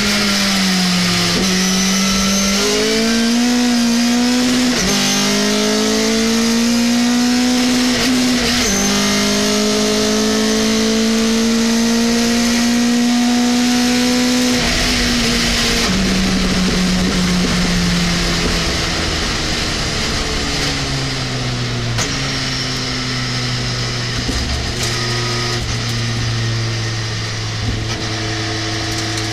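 Race pickup truck's engine heard from inside the cabin, accelerating hard with the pitch climbing and dropping back at each of several upshifts, held at high revs, then easing off and falling in pitch before running steadily at lower revs.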